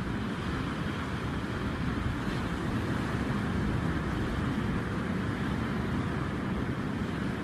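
Ocean surf washing, a steady rushing noise with a deep rumble underneath.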